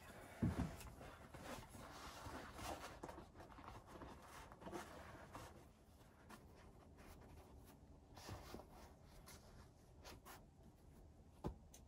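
Faint rustling and scraping of a large stiff sheet of material being lifted, spread and smoothed by hand, with a knock about half a second in and a few light clicks.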